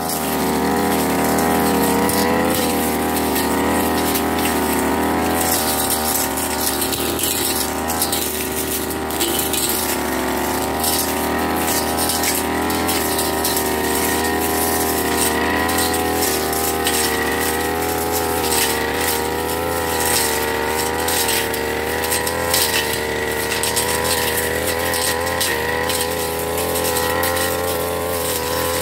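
Backpack brush cutter engine running steadily at high speed, its pitch wavering slightly as the blade sweeps through grass and weeds, with frequent short sharp ticks as the blade strikes stems and debris.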